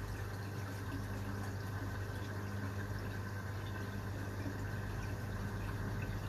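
Steady running water from a reef aquarium's sump system, with the even low hum of its pumps and equipment underneath.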